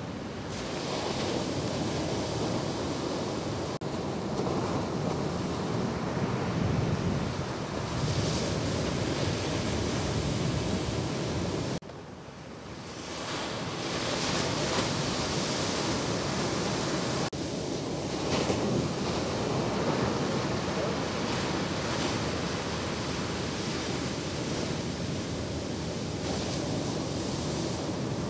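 Ocean waves breaking in the shorebreak, a continuous wash of surf with wind noise on the microphone. The sound drops suddenly about twelve seconds in, then builds back over a couple of seconds.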